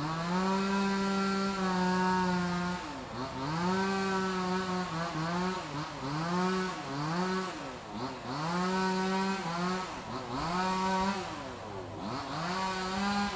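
A motor revs up and down over and over, about nine times. Each rev climbs quickly, holds for a moment to two seconds, then falls away.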